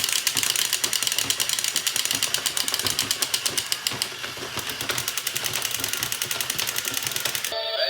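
Battery-powered toy gun's mechanism clicking rapidly and evenly, about ten clicks a second, over a steady high whine, with a brief break about four seconds in. It stops shortly before the end.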